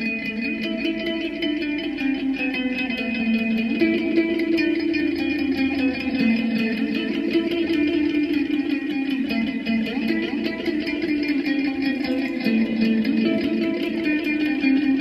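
Background music: guitar played through effects with reverb, held notes over a slowly shifting low line and a fast, even ticking rhythm up high.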